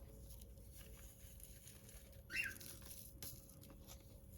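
A pet bird gives one short squawk, rising in pitch, about halfway through, over a few faint clicks.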